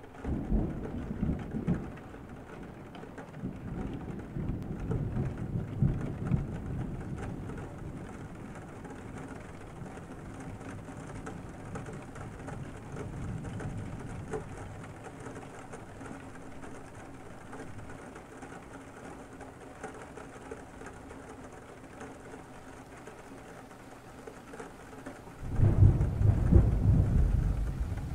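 Thunderstorm: steady rain with rolls of thunder, a rumble right at the start, a longer one a few seconds in, and the loudest thunder starting suddenly near the end.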